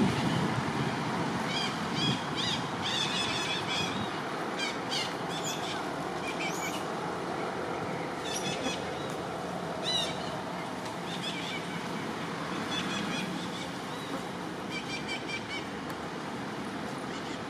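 Birds chirping and twittering in short clusters every second or two, over a steady background rush.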